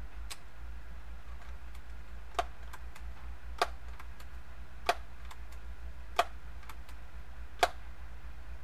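Daisy PowerLine 901 multi-pump air rifle being pumped: five sharp clacks about one every 1.3 seconds, each a stroke of the pump forearm, with lighter clicks between.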